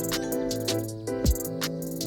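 Background music with a steady beat: sustained notes over a deep thump about once a second and quick high ticks between.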